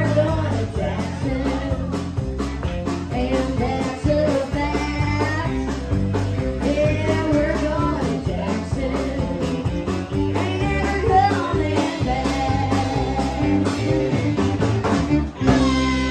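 Live band playing, with a woman singing lead over electric guitar and drums. Near the end the band hits a final chord that rings on.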